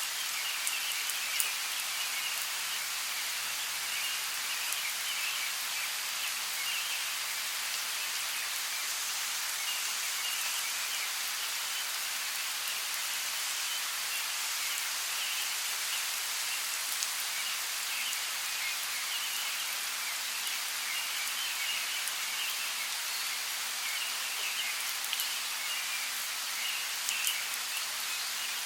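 Steady rainforest rain: an even hiss with scattered drop ticks, and a faint high chirring that comes and goes.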